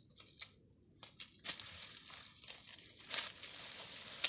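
Rustling and crinkling of a bag and dry leaves as a captured snake is lowered into a cloth sack and the sack is twisted shut. A few soft clicks come first; the rustling starts about a second and a half in.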